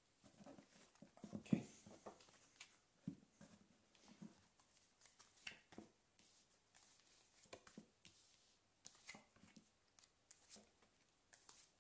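Oracle cards being dealt from a hand-held deck onto a cloth-covered table: faint, scattered soft slaps and rustles, with one louder knock about a second and a half in.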